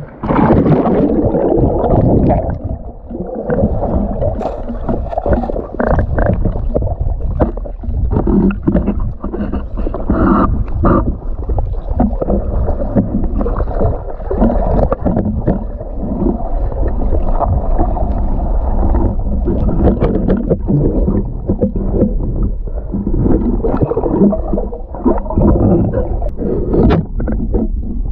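Muffled underwater rumbling and gurgling from a camera in a waterproof housing as a diver swims along a murky riverbed, with scattered irregular knocks and clicks. It starts suddenly as the camera goes under the surface.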